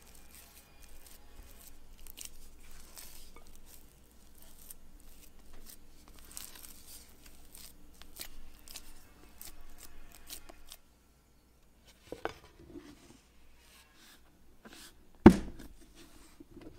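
Silicone spatula scraping and stirring thick, shaggy dough in a glass bowl, an uneven run of soft scrapes that stops about 11 s in. After a pause comes a light knock, then a single sharp knock as a plastic lid is fitted over the bowl.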